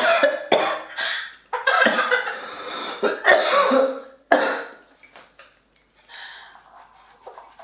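A man coughing and spluttering in a run of harsh coughs and gasps, from the burn of very hot chili sauce; it quietens about halfway through.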